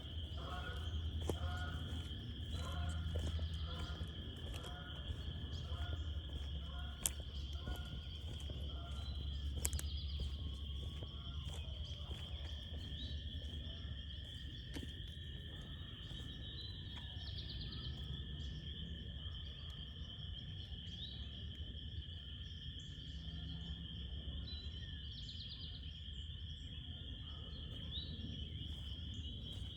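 Loud chorus of frogs trilling, a steady high-pitched din, with a second, lower trill joining about a third of the way in. Faint coyote yips and howls rise and fall through the chorus in the first several seconds.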